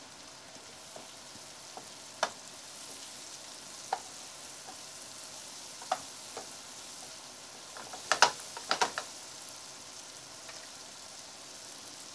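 Sliced red peppers, onions and spices sizzling steadily in oil in a frying pan while a wooden spatula stirs them, scraping and knocking against the pan every couple of seconds, with a quick run of louder knocks about eight seconds in.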